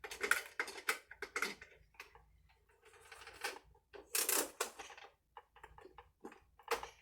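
Hard plastic toy parts being handled: irregular clicks, knocks and short scrapes as pieces are fitted and moved about.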